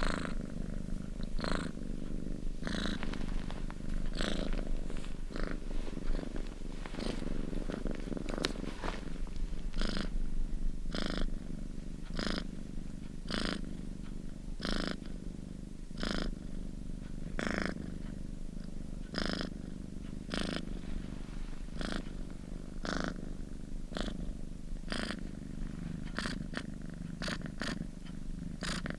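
Domestic cat purring steadily and close up, with a breathy pulse about every second and a half.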